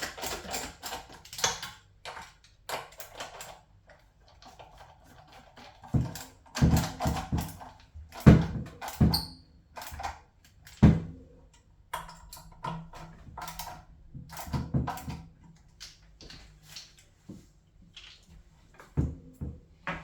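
Irregular clicks, taps and knocks of hand tools and metal parts being handled, with a cluster of louder thumps about six to eleven seconds in.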